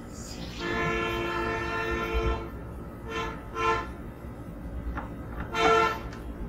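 A horn-like pitched tone: one long blast of about two seconds, then three short blasts of the same tone.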